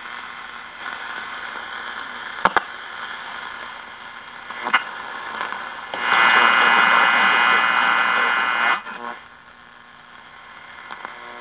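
1951 RCA Victor 1-X-51 All American Five AM tube radio giving static and hiss through its speaker as its stiff tuning capacitor is turned, with no station coming through. There is a sharp click about two and a half seconds in. About six seconds in a much louder rush of static starts, and it cuts off suddenly nearly three seconds later.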